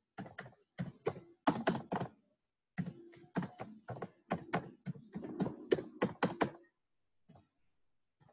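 Computer keyboard typing: quick runs of key clicks with a short pause about two seconds in, stopping shortly before the end.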